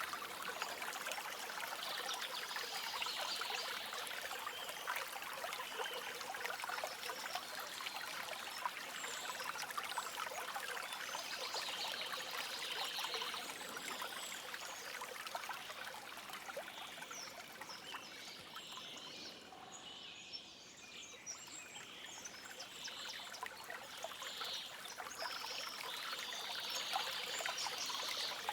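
Stream water babbling and trickling over stones, with faint high bird calls over it. The water dips briefly about two-thirds of the way through.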